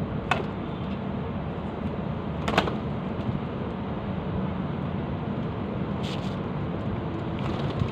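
A few brief flurries of pigeon wing flaps, about three spread over several seconds, from a hand-held pigeon beating its wings, over a steady low rumble.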